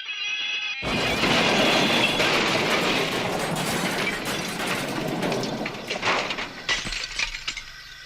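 A steam whistle cuts off sharply and a loud crash sound effect takes over: a smash of breaking and splintering with clattering debris that trails away over several seconds, like a model railway accident.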